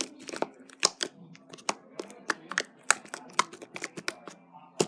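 Fluffy slime being squeezed and poked by hand, giving an irregular run of sharp clicks and pops, about two or three a second.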